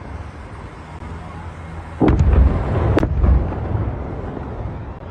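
Missile explosion: a sudden loud boom about two seconds in with sharp cracks, a second crack about a second later, and a low rumble that dies away over the next couple of seconds.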